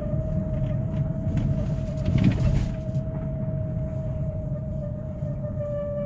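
A steady, high-pitched squealing whine from a Hyundai Creta while it accelerates, heard from inside the cabin over engine and road rumble. The squeal grows with throttle and does not change when the brakes are applied. A brief clatter comes about two seconds in.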